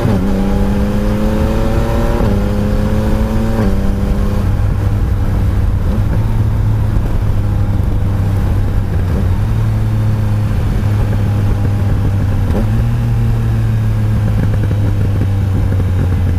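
Yamaha Tracer 900 GT's three-cylinder engine pulling hard through the gears. Its pitch rises and drops at upshifts about 2 and 3.5 seconds in, then it settles into a steady cruise under wind rush.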